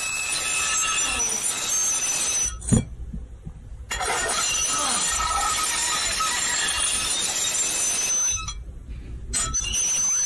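Recorded sound of a fork scratching a metal plate, played again and again: a harsh, high-pitched scraping and squealing that breaks off briefly about three seconds in and again about eight seconds in.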